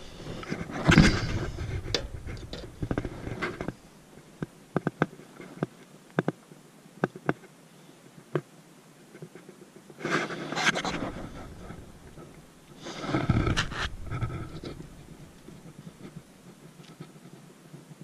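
Handling noise while working in an open heat pump control panel: rustling and scraping, then a string of separate sharp clicks and taps, then two brief rushing bursts of noise.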